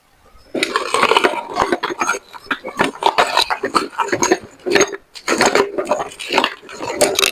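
A meat grinder crushing a whole bell pepper: dense, irregular crunching and cracking that starts about half a second in and goes on with short pauses.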